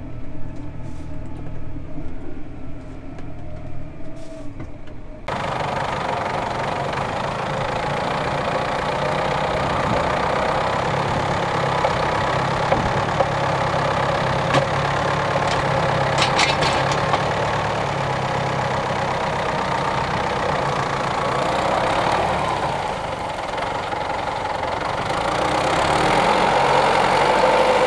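Tractor engine running steadily. About five seconds in, the sound switches abruptly to a louder, noisier engine run, with a few brief rattles partway through.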